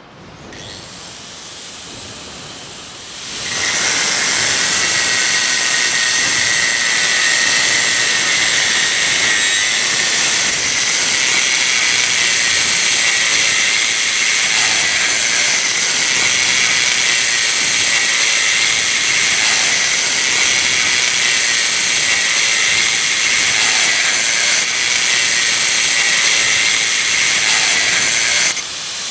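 Loud, steady hissing machinery noise of high-noise construction work. It comes in a few seconds in and cuts off suddenly near the end.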